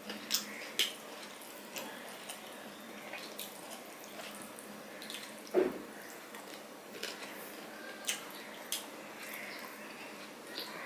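Wet, sticky eating sounds of rice mixed with hilsa fish bhuna by hand: fingers squishing the rice against a steel plate and lip-smacking chewing, heard as scattered short wet clicks. One louder smack comes a little past halfway.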